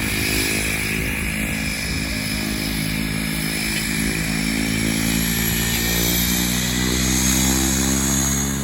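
Skydiving plane's engine and propeller running steadily, with a high whine slowly rising in pitch.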